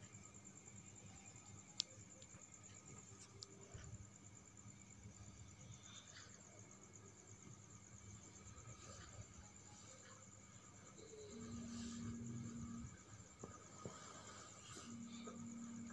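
Near silence: faint background noise with a steady high-pitched whine, a single click early on, and a low steady hum that comes in twice, about eleven and fifteen seconds in.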